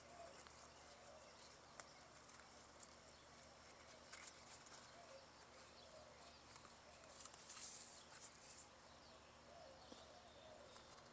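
Near silence: faint outdoor ambience, with a steady high hiss that swells briefly about two-thirds of the way in and a few faint ticks.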